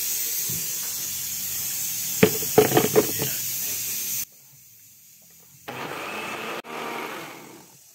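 Countertop blender grinding cilantro into tomato salsa: a few knocks as the jar is set on the base about two seconds in, then the motor running in two short spells from just past halfway, winding down near the end. A steady hiss of salsa frying in a pan lies under the first half.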